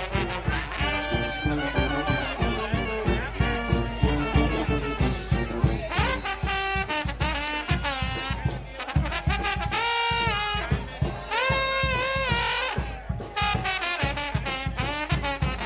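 Live brass street band playing: trumpets, trombones and saxophones over drums keeping a steady beat, with horns holding and bending notes partway through.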